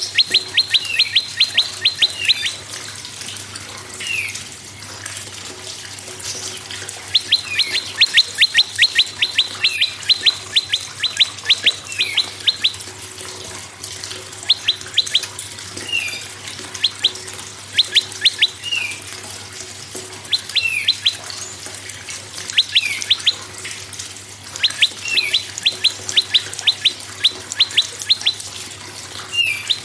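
Prenjak birdsong: fast runs of sharp, ticking notes lasting a second or two, repeated every few seconds, with single short down-slurred chirps between the runs, over a steady background hiss.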